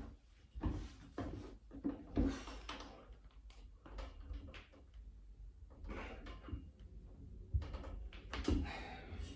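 A man doing a set of pull-ups on a freestanding pull-up station: short, scattered sounds of effort and light knocks from the frame, spaced irregularly over several seconds.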